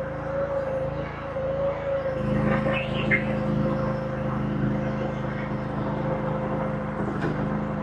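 Diesel engine of a compact earthmoving machine running under work, its note growing stronger about two seconds in as it takes load, with a steady high whine over it.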